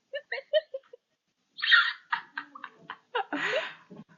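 A girl making weird vocal noises: about five quick pitched chirps in the first second, then breathy huffs and short clicking sounds.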